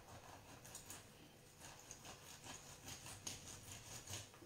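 Lemon half being twisted and pressed on a plastic hand citrus juicer, giving a faint string of irregular little clicks.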